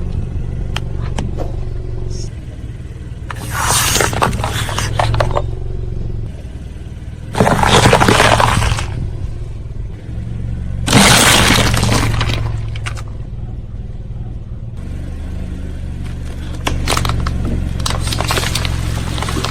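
A car idling while its tyre rolls over and crushes brittle objects: three loud bursts of crunching and cracking, each a second or two long, then scattered smaller cracks and snaps over the engine's steady low hum.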